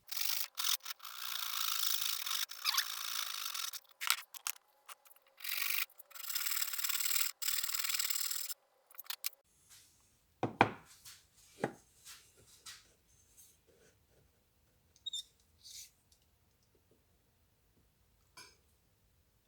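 Long rubbing strokes of a hand tool working particle board, in several runs with short pauses. After that come two sharp knocks about a second apart and a few light clicks.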